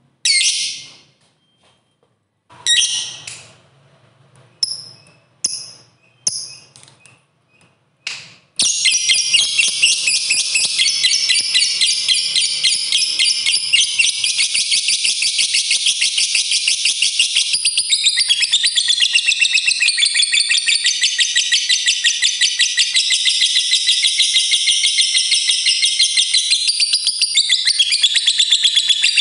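Lovebird calling: a few short, separate chirps over the first eight seconds, then from about eight seconds in one long, unbroken, rapid chattering trill, the long 'ngekek' prized in fighter lovebirds.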